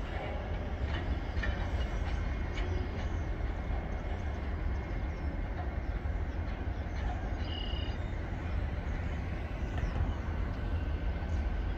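Freight train of covered hopper cars rolling slowly past: a steady low rumble with faint clicks from the wheels and couplers. A brief high-pitched tone sounds about seven and a half seconds in.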